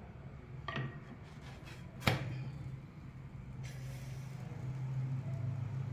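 A steady low hum in a quiet kitchen, with a faint click under a second in and one sharp knock about two seconds in.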